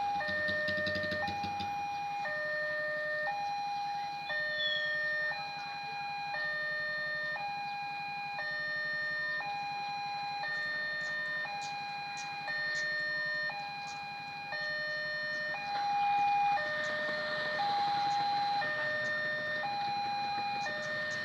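Railway level-crossing warning alarm sounding: an electronic signal alternating between a higher and a lower tone a little faster than once a second, the warning that a train is approaching. A low engine rumble underlies the first two seconds.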